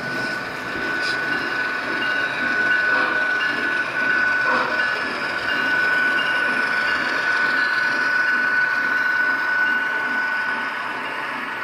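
Model freight train, a pair of CSX model diesel locomotives hauling coal hoppers, running past on the layout track with a steady high whine over the rolling noise of the wheels. It grows louder about a second in and eases off near the end as the train passes.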